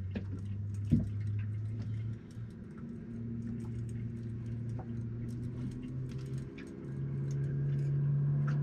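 Boat engine humming steadily, dipping briefly about two seconds in and rising in pitch and loudness near the end, with scattered light ticks from a fishing reel being wound in.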